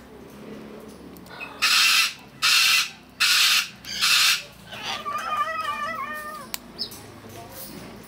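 Cockatoo screeching: four harsh, loud squawks in quick succession, then a longer wavering, whining call lasting a couple of seconds.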